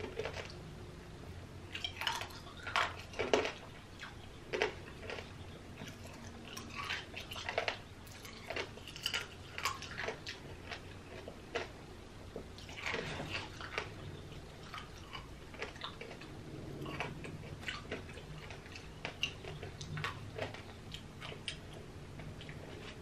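Eating tanghulu, candied strawberries with a hard sugar coating: irregular crisp crunches and chewing as the candy shell cracks between the teeth, with wet mouth smacking.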